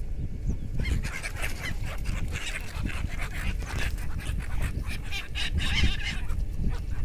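A flock of birds calling, many short high calls overlapping in a dense chatter that starts about a second in and dies down near the end, over a steady low rumble.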